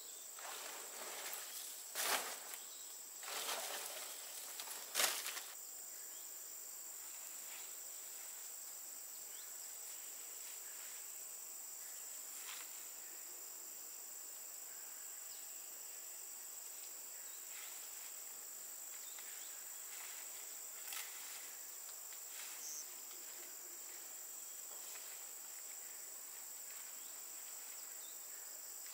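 Steady high-pitched insect drone, crickets or similar. In the first few seconds there is rustling of palm fronds and a few sharp knocks as the fronds are laid on the bamboo roof frame.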